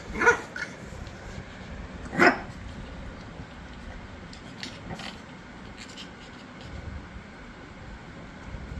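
Shih Tzu puppy giving two short barks, one just after the start and the second about two seconds later.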